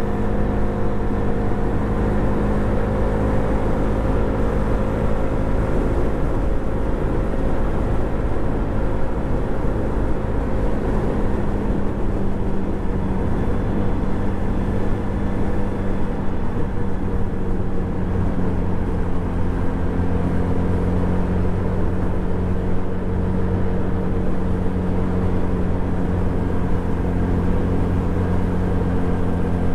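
Suzuki Address 110 scooter's single-cylinder engine running at steady cruising revs, its pitch easing slightly lower about ten seconds in and then holding.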